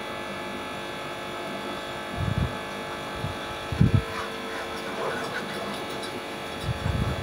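Steady buzzing hum with dull low thumps about two, four and seven seconds in.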